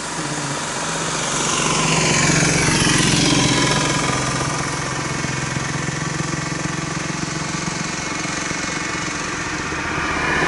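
Small vehicle engines running. An auto-rickshaw passes close about two seconds in, its engine note falling in pitch as it goes by. A steady engine hum carries on, and another vehicle draws near at the very end.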